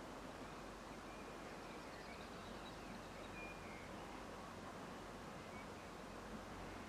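Quiet, steady outdoor background noise with a few faint bird chirps.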